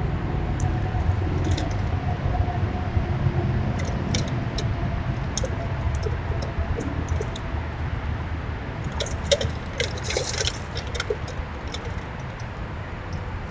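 Backyard outdoor sound: a steady low rumble with scattered short, high clicks or chirps, bunched most densely about nine to eleven seconds in.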